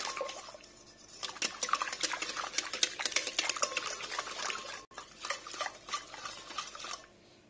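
Wire whisk beating clarified butter, oil and powdered sugar into a creamy mixture in a glass bowl, its wires clicking and scraping rapidly against the glass. It pauses briefly just after the start, resumes, and stops shortly before the end.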